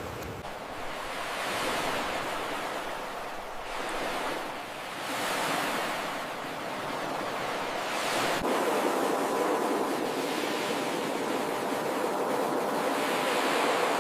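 Ocean surf: waves breaking and washing in, rising and falling in several swells. There is a sudden break about two thirds of the way through, after which faint steady tones sit under the wash.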